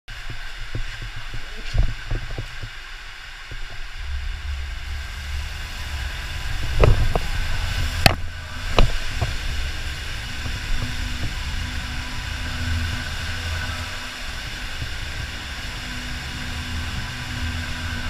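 Raft rushing down an enclosed water slide: a steady low rumble and hiss of water, with scattered knocks and three or four sharp knocks in quick succession near the middle, as the raft bumps through the tube.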